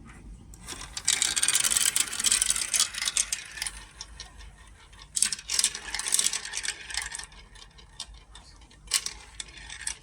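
Marbles rolling and clattering down a marble run, three spells of rapid clicking and rattling: a long one starting about a second in, another about halfway through, and a short one near the end.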